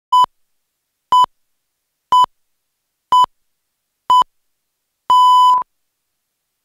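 TV broadcast countdown leader beeps: five short beeps one second apart, then one longer beep of about half a second, all on the same steady pitch, marking the end of the count.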